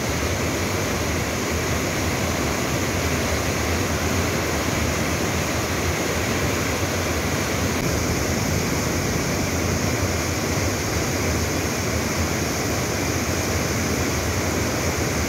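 Floodwater rushing through a river barrage's open sluice gates and churning into white-water rapids below: a loud, steady roar of turbulent water.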